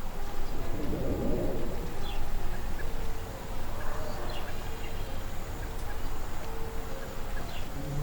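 Riverside ambience: a steady low rumble of wind and moving water, with a few short bird chirps and calls over it.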